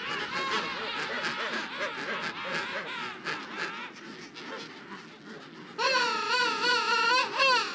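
King penguin colony calling: many overlapping trumpeting calls. Near the end one loud, close bird gives a long call with a wavering pitch.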